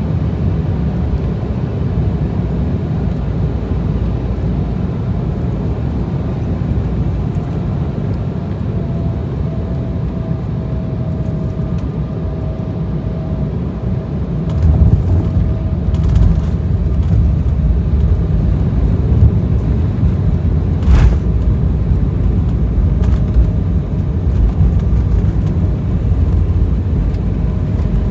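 Cabin noise of an Embraer 190 landing: steady engine and airflow rumble with a faint whine in the first half, then about halfway through the rumble jumps louder and rougher as the wheels touch down and the jet rolls along the runway, with a single sharp knock a few seconds later.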